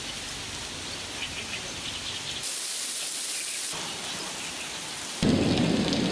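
Steady hiss of heavy rain falling on a paved street. About two and a half seconds in it turns thin and hissy for about a second. About five seconds in it gets suddenly louder and fuller.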